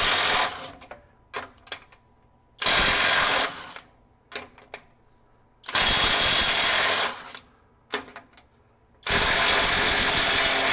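Kobalt KIW 124B-03 24V brushless mid-torque impact wrench hammering in reverse in four short bursts, each one breaking loose a large bolt torqued to between 150 and 450 ft-lbs. The bursts last about a second each, the last two a little longer, with quiet gaps and a few small clicks between them.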